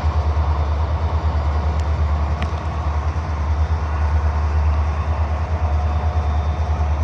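Union Pacific diesel-electric locomotives running in a rail yard: a deep, steady engine drone that pulses slightly.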